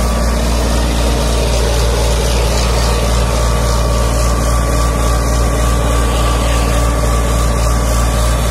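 Eicher 557 tractor's three-cylinder diesel engine running steadily under load, the tractor in two-wheel drive with one side's brake applied and a rear tyre dug into the soil.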